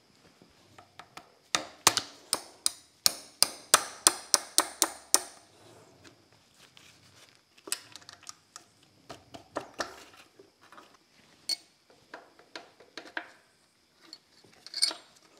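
Hand tools working on a GM 10-bolt rear axle's differential: a run of about a dozen sharp metal clicks or taps, about three a second, then scattered lighter clinks and knocks.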